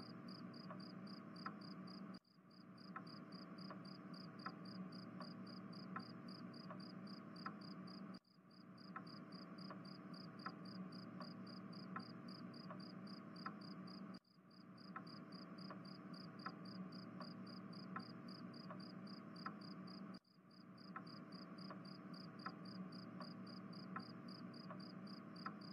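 Faint night ambience of crickets chirping in a fast, steady trill, with soft ticks about twice a second. It breaks off briefly about every six seconds, as a repeating background loop does.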